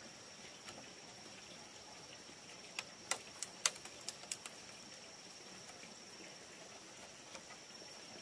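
A quick run of about seven sharp clicks a few seconds in, from hands lashing bamboo poles together with a strip of leaf. A steady high insect whine runs underneath.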